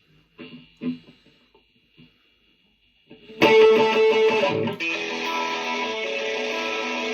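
Guitar playing the opening of a song cover: a few quiet scattered notes, then a full, loud strummed guitar part comes in about three and a half seconds in and carries on steadily.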